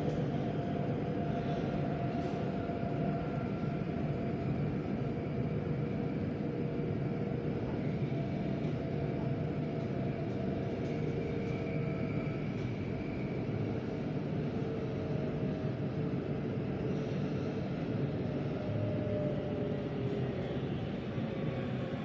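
Interior noise of a Bangkok MRT Blue Line metro train running on elevated track: a steady rumble with faint whining tones from the running gear.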